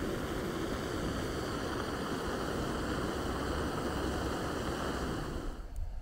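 A steady rushing noise that cuts off abruptly near the end.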